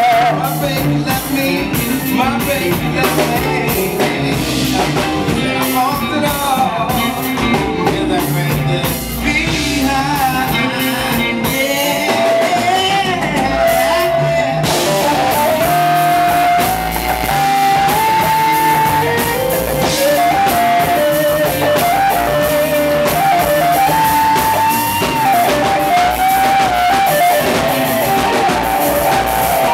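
Live band playing a soul-blues number: electric guitars over a drum kit, amplified in a room. From about halfway through, a lead line of long held notes steps up and down over the band.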